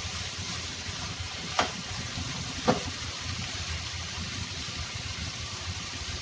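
Pepper chicken sizzling and simmering in its pan, a steady hiss, with two sharp clinks about a second and a half and two and a half seconds in.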